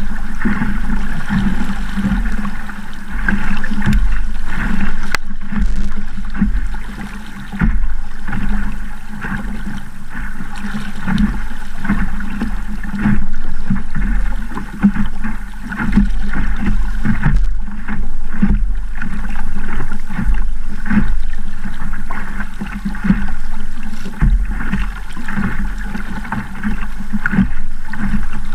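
Water rushing and slapping against the hull of a small Sabot sailing dinghy moving fast through choppy water, rising and falling irregularly, with wind rumbling on the microphone.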